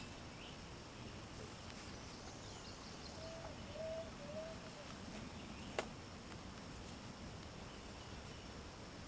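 Faint outdoor background noise with a steady high-pitched tone. A bird gives three short calls about three to four and a half seconds in, and there is a single sharp click near six seconds.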